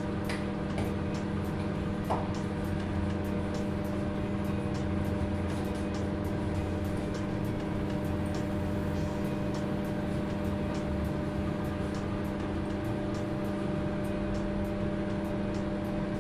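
900-watt microwave oven running mid-cycle with pasta boiling in water inside: a steady electrical hum with the fan's whir and faint, regular ticks.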